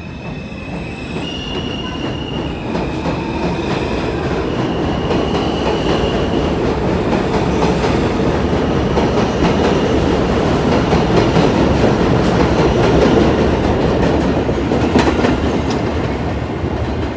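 New York City subway train on the elevated J/M line running past, its steel wheels clacking over rail joints and squealing in the first few seconds. The rumble builds to a peak well into the passage, then fades as the train moves off.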